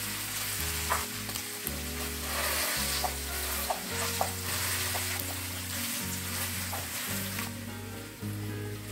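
Fried tofu sizzling in hot oil with a chili, shallot and garlic paste in a frying pan, while a metal fork clicks and scrapes against the pan, pressing and crushing the tofu. The sizzle thins near the end.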